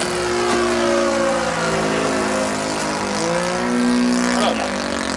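Engine of a Goldberg Ultimate radio-controlled biplane running in flight, its pitch sliding down and then up again as the model manoeuvres.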